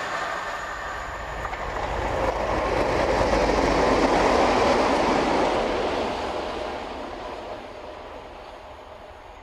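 A passing train: a steady rumble of wheels on rail that swells to its loudest about four seconds in, then fades away.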